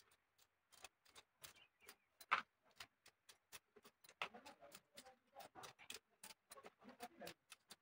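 Knife chopping green chillies on a cutting board: faint, irregular sharp taps, a few a second.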